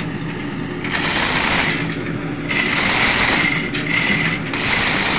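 Manual chain block hoist being worked, its chain rattling and ratcheting in spells of about a second, over a steady low hum of running engine-room machinery.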